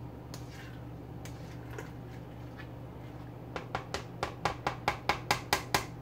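Large spoon stirring collard greens in a deep metal stockpot: soft scraping at first, then a quick even run of about a dozen knocks of the spoon against the pot, about five a second and growing louder, over the last couple of seconds.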